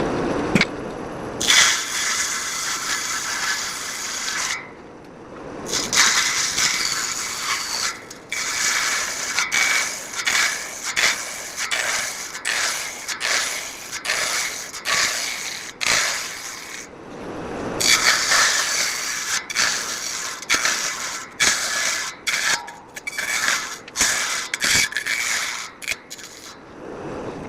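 Table saw cutting wood in repeated short passes: a rough, loud cutting noise that starts and stops abruptly many times, about every half second through the middle and later stretches.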